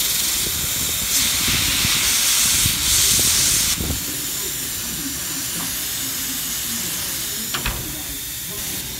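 Harbor Freight hot-air plastic welder blowing a steady hiss of hot air as white ABS filler rod melts in the jet; the hiss drops a little under four seconds in. A light knock or two near the end.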